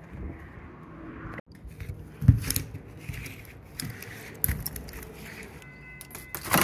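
Small metal parts and hand tools clinking and rattling, with a few sharp knocks, the loudest about two and four and a half seconds in.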